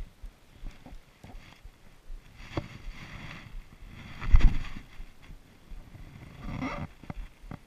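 Handling noise on a chest-worn action camera: jacket fabric rubbing and brushing against the housing in irregular rustles, with a loud dull knock about halfway through.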